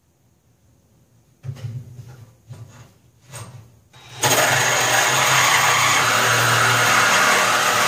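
A power cutting tool cutting through the old exhaust hangers: a few short bursts of noise, then from about four seconds in it runs steadily and loudly.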